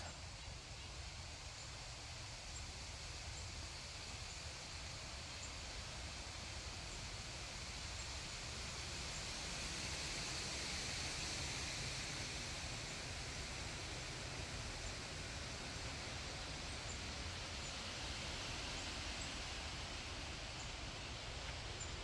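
Wind blowing through the autumn trees, a steady rustling hiss of leaves that swells gently midway and eases off again.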